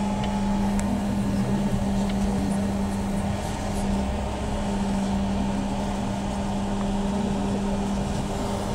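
Inside a BKM 321 trolleybus on the move: a steady electric hum from the vehicle's equipment over an even road and tyre rumble.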